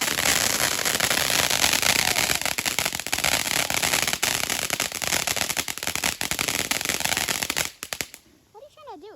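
Fireworks crackling: a dense, rapid string of sharp pops that runs on without a break and stops suddenly about eight seconds in, followed by a brief high child's voice.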